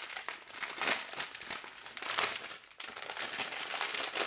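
Small plastic bags of diamond-painting drills crinkling as they are handled, in irregular crackly bursts.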